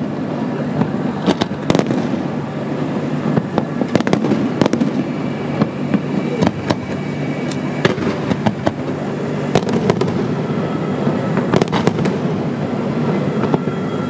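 Fireworks display: aerial shells bursting in many sharp bangs at an irregular pace, over a continuous low rumble.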